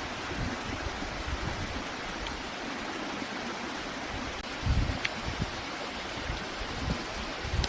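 Steady rushing noise, with a low thump about halfway through and a few short sharp clicks.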